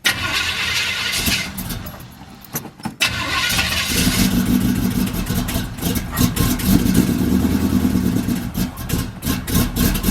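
Cutlass engine started and running with a header leak at the rear header bolt, where the gasket has been pushed up and the bolt is missing: it catches about three to four seconds in, then runs steadily with sharp ticks from the leak.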